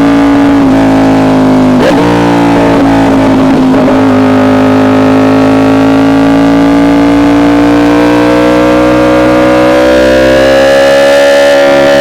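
Yamaha R1 sport bike's inline-four engine with an SC Project exhaust, pulling hard in gear at high revs, its pitch climbing slowly and steadily through the second half.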